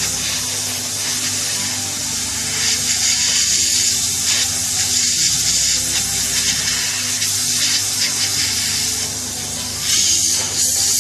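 Hot air rework gun blowing over a water-damaged GoPro Hero 6 circuit board to dry it: a steady airy hiss that swells and eases as the nozzle is swept back and forth.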